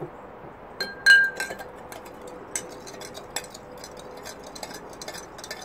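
Metal spoon clinking against the inside of a ceramic cup while stirring sugar into water to dissolve it: a run of irregular taps, with one louder, ringing clink about a second in.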